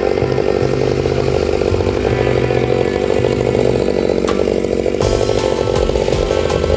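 Chainsaw running steadily at high revs, then cutting off sharply at the end.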